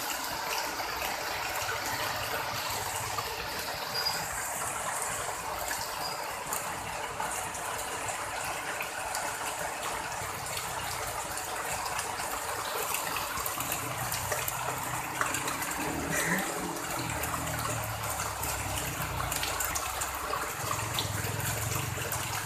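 Heavy rain pouring down steadily, a dense hiss with many fine drop ticks, some of them striking the metal roofing close by. A low rumble comes and goes in the second half.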